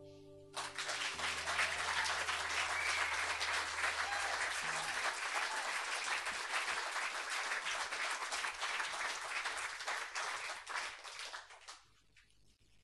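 A small audience applauding at the end of a song, the last acoustic guitar notes ringing out underneath for the first few seconds. The clapping starts about half a second in and dies away near the end.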